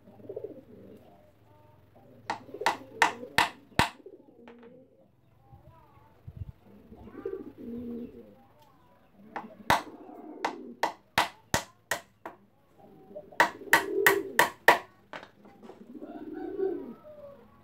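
Doves cooing repeatedly, broken by three quick runs of sharp knocks on wood, four to six knocks in each run, as wooden speaker-box panels are handled and fitted together.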